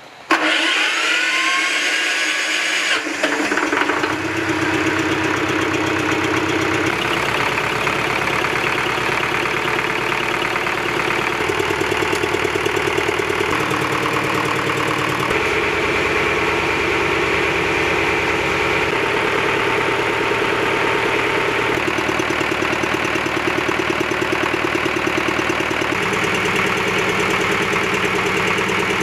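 30 kW generator set's diesel engine cranked by its electric starter with a rising whine, catching about three seconds in on the first attempt after its rebuild, then running steadily.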